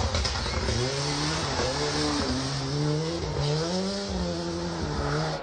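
Rally car engine revving hard, its pitch climbing and dropping several times as the driver works through the gears, over a steady hiss of tyre and road noise.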